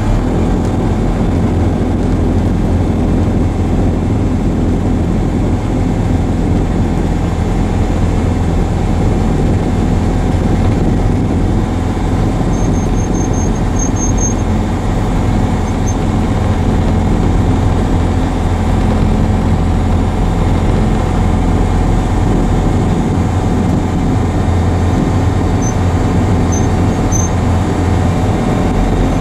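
Light aircraft engine and propeller running steadily at low power during line-up on the runway, heard from inside the cockpit.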